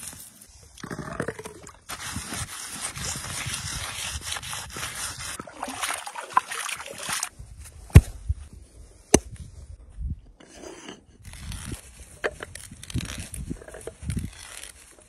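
Handling and scraping of stone and wood, with two sharp knocks a little past the middle. Near the end, a hand auger bores into the top of a wooden log stump, a rough grinding scrape as it cuts out shavings.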